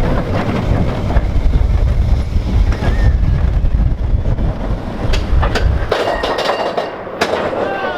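Roller coaster train of Expedition Everest running on its track, heard from on board: a loud, heavy rumble with wind over the microphone that eases off about six seconds in, followed by scattered clicks and brief squeals of the cars.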